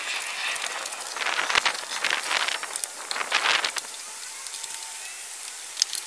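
Plastic front-bumper trim strip and its clips on a Mini Cooper S R56 being handled and worked loose: scraping and rattling in bursts through the first few seconds, with a few sharp clicks.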